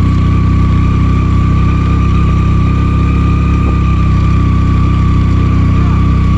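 Motorcycle engine idling steadily, heard up close, with a thin steady high whine above it.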